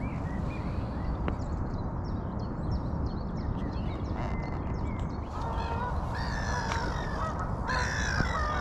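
Geese honking, a run of repeated calls starting about five seconds in, with small birds chirping faintly before them. A steady low rumble runs underneath.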